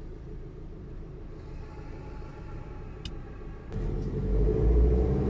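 Car engine and road rumble heard from inside the cabin: low and steady while the car stands at a traffic light, then suddenly louder with a rising engine note about three-quarters of the way through as the car pulls away.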